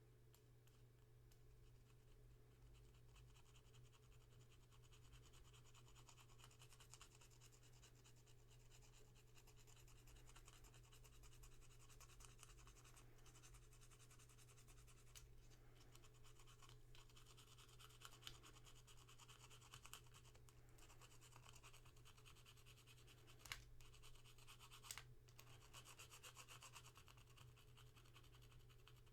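Faint, steady scraping of a screwdriver blade over the headlight switch of a WW2 Willys MB jeep, working sticky gummy residue off it, with two sharp clicks a little over a second apart near the end.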